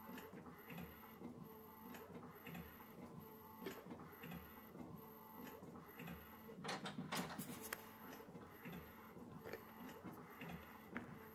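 Epson EcoTank ET-8550 inkjet printer printing a large photo: the printhead carriage shuttles across the page in a faint, regular rhythm of passes. A louder noisy stretch comes about seven seconds in.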